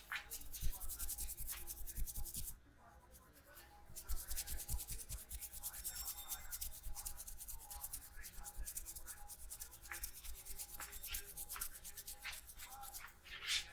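Hands rubbing fast over a head and hair during a head massage, a dense run of quick rhythmic strokes that breaks off about two and a half seconds in and picks up again about four seconds in, with a few dull low knocks among them.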